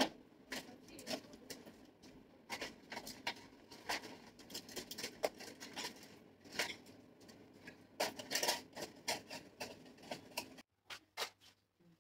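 Irregular soft clicks and rustles of hairstyling work: a comb drawn through and teasing the hair, and hairpins handled. The background drops to near quiet about ten and a half seconds in, leaving a few faint clicks.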